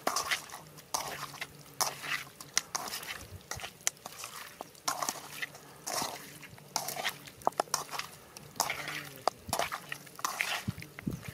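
A hand squishing and turning marinated raw chicken pieces in a metal pan: irregular wet squelches and slaps with sharp clicks off the pan, several a second.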